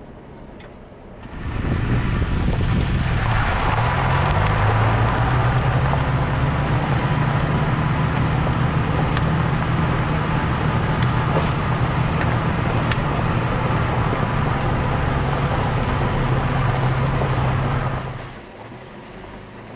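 Toyota pickup truck heard from outside, close to the front tyre, as it drives up a gravel dirt road: the engine runs with a steady low hum and the tyres crunch over gravel, with small stones clicking now and then. It comes in about a second and a half in, the engine note rises slightly a couple of seconds later, and it drops back to quieter in-cab sound near the end.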